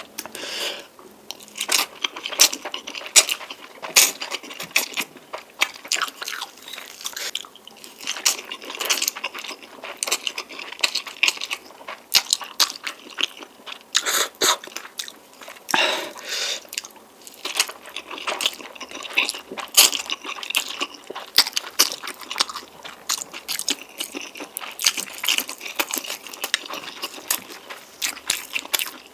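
A person eating spicy noodles close to the microphone: continuous chewing and biting, with many short, irregular crunchy clicks and wet mouth sounds.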